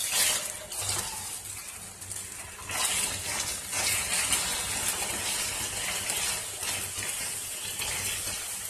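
Chicken pieces sizzling in hot oil in a nonstick frying pan as they are lightly browned. The pieces are turned with a silicone spatula, giving a few brief stirring sounds in the first four seconds.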